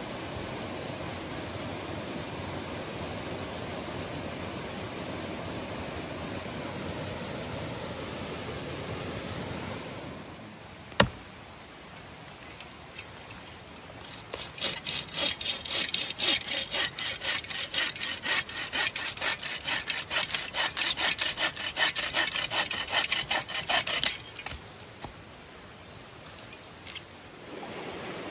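A rushing mountain stream for about ten seconds, then a single sharp click. Then a hand saw cuts through a small tree in steady, even back-and-forth strokes for about ten seconds, and the stream is heard again near the end.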